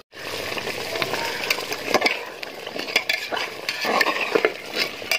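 A wooden spatula stirring mutton curry with potatoes in a metal pot: irregular scraping and light knocks against the pot's sides, with the curry sizzling underneath.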